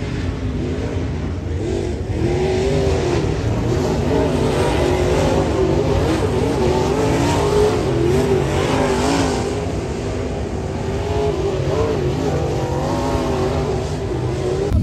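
Dirt track race cars running laps on the oval, their engines rising and falling in pitch as they go through the turns and down the straights.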